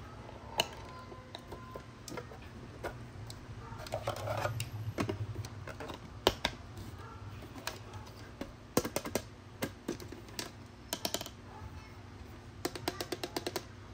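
Hard plastic clicks and taps from a small push-lid car trash bin being put together by hand, its lid assembly handled and snapped onto the body, with several quick runs of clicks.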